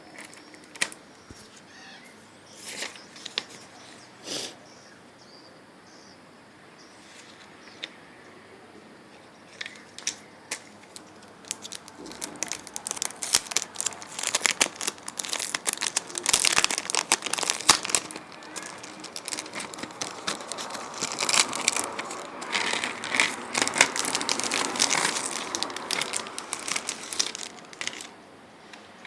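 Plastic shrink-wrap crinkling and tearing as a CD case is unwrapped by hand: scattered clicks and rustles at first, then dense, continuous crinkling from about halfway through until near the end.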